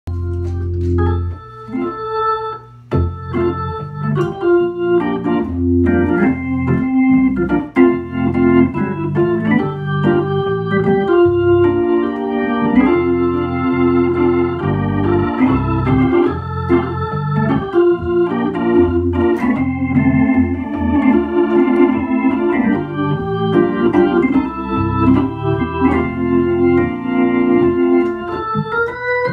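Hammond B-3 tonewheel organ played through a Leslie 122 rotating speaker cabinet: sustained chords changing every second or so, with low bass notes underneath.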